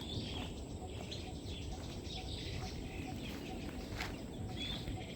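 Birds chirping in short, scattered calls over a steady low background noise.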